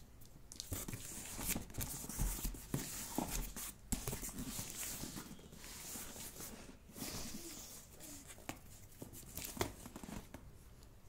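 Packing tape on a cardboard shipping box being slit and scraped with scissors, with irregular knocks and rubbing of cardboard as the box is handled and turned over.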